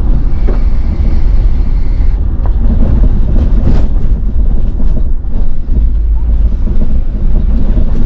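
Truck driving on a rough dirt road: a loud, steady low rumble of engine, tyres and wind on the microphone, with a few short knocks from bumps.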